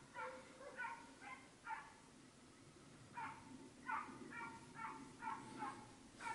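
Hunting hounds barking on a boar drive: a faint series of short barks, about four in the first two seconds, then after a pause of about a second another run of barks, close together.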